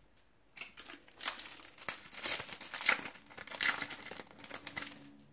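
The foil wrapper of a Panini World Cup 2018 trading-card packet crinkles as it is handled and torn open. The irregular crackling rustles start about half a second in and are loudest around the middle.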